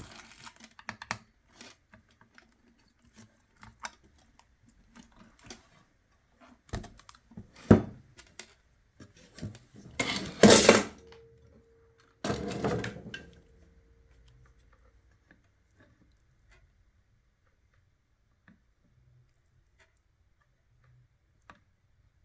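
Metal parts and tools clinking and knocking on a workbench while a voltage regulator is fitted to its heatsink on a home theatre amplifier board. There are scattered sharp clicks, then two louder clattering bursts about ten and twelve seconds in, and after that only the odd faint tick.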